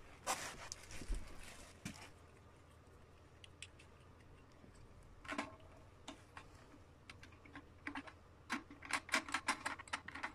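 Faint, scattered clicks and light taps, with a quicker run of clicks near the end.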